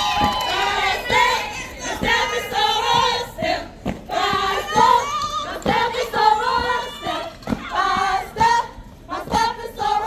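A group of women's voices chanting in unison in short rhythmic phrases, with sharp hits between the phrases.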